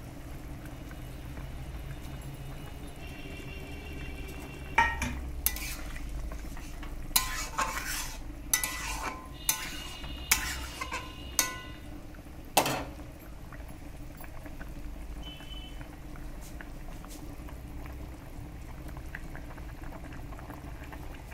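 Fish curry simmering in a metal kadai, with a spatula stirring and knocking against the pan in a run of sharp clicks from about five seconds in to about thirteen seconds.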